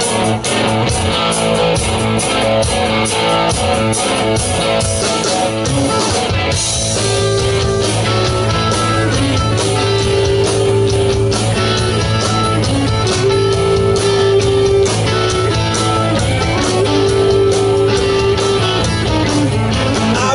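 Live rock band playing the instrumental intro of a song: electric guitars over bass and drums. A guitar figure of held notes comes back about every four seconds.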